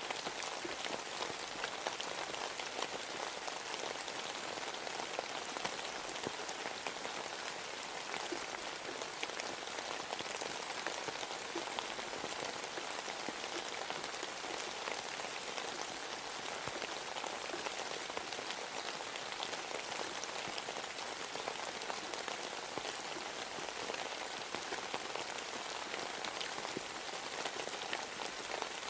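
Steady rain falling on a surface: an even hiss dotted with many small drop taps.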